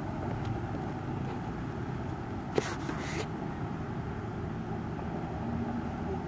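Steady low rumble of motor vehicles, with one sharp click about two and a half seconds in, followed by a brief hiss.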